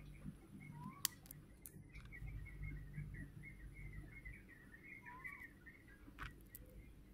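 Faint, continuous chirping and twittering of a small bird. Jewelry wire cutters snip the wire once about a second in with a sharp click, and another click comes near the end.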